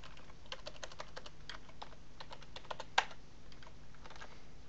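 Typing on a computer keyboard: a run of quick, irregular keystrokes, with one harder keystroke about three seconds in.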